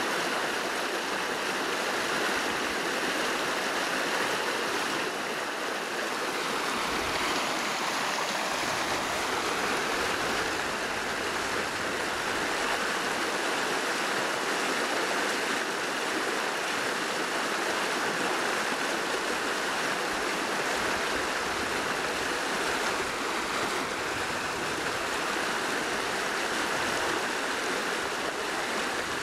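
Fast-flowing rocky stream rushing over stones, a steady, even sound of running water.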